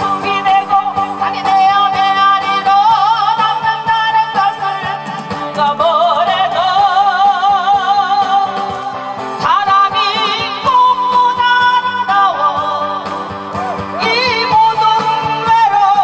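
Woman singing a song live into a microphone, her held notes wavering with strong vibrato, over instrumental accompaniment.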